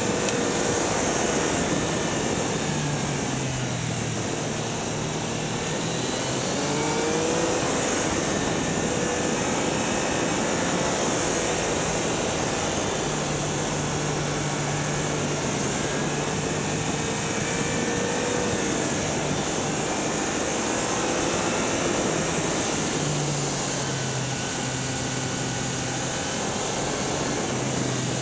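Yamaha Niken's three-cylinder engine running under way, its pitch rising and falling with the throttle, under steady wind and road noise on a camera mounted low by the front wheels.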